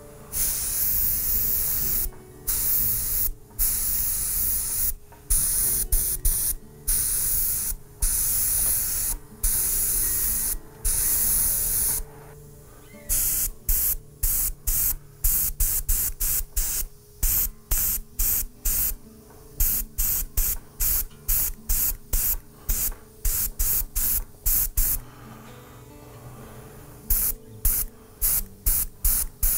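Airbrush spraying white acrylic paint in bursts of hiss as the trigger is pressed and released. The bursts last about a second each at first, then turn into short quick puffs, about two a second, from a little before halfway through.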